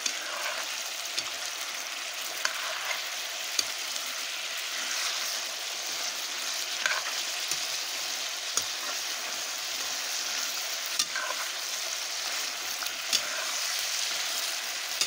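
Chunks of buffalo meat frying with a steady sizzle in a metal karahi over a wood fire while a ladle stirs them, with about a dozen scattered sharp clicks.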